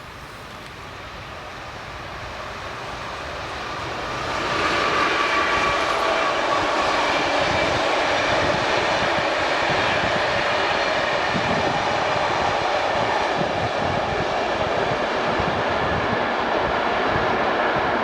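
A train approaching and passing. It grows louder over the first four or five seconds, then stays steady and loud.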